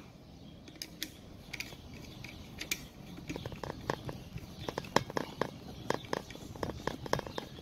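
Screwdriver working the screws on the metal end cap of an electric fan motor: a few scattered metallic clicks, then from about three seconds in a quick run of small clicks, several a second, as the screws are turned.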